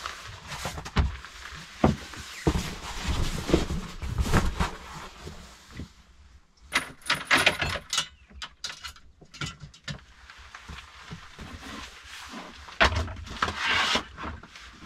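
Handling noises of a person moving about and arranging things in a small log dugout: knocks and bumps on wood with rustling of clothing and objects. A denser patch of clatter and jingly scraping comes about seven seconds in.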